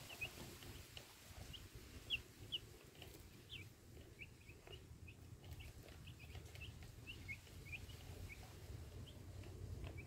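Week-old broiler chicks peeping softly: a scattered run of short, high cheeps, often two or three a second.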